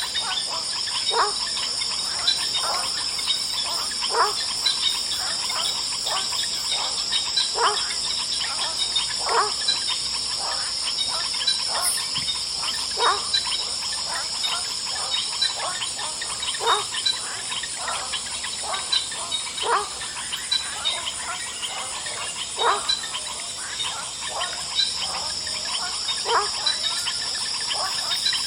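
Evening swamp chorus: insects such as crickets trill steadily and high, while frogs call over them. Short calls fall in pitch and repeat about every second and a half.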